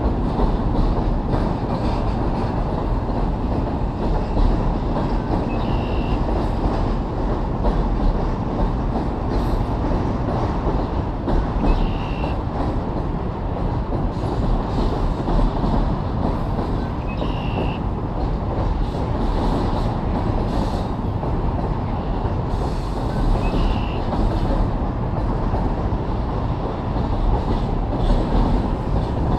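Canadian Pacific double-stack container freight train rolling across a steel trestle bridge: a steady, loud rumble of wheels on rail and steel deck. A brief high squeak comes about every six seconds.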